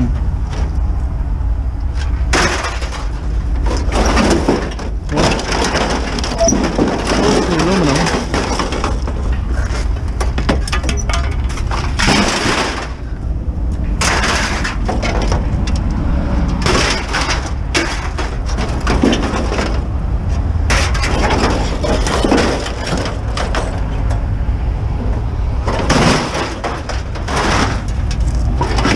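Scrap sheet metal and paper being handled: repeated crinkling, scraping and clattering at irregular moments, over a steady low rumble.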